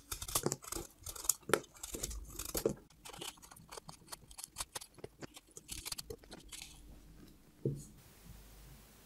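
Small kitchen knife cutting and scraping through raw zucchini: a run of short, crisp cuts as the skin is pared off a ring and the seedy flesh is cut out, with a single soft knock near the end.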